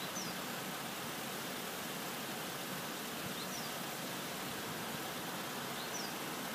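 Steady outdoor background hiss with no train passing, broken by a few faint, short, high bird chirps a few seconds apart.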